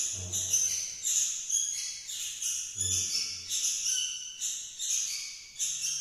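Background music: a tinkling, bell-like figure repeating two or three times a second over a low note that returns about every three seconds.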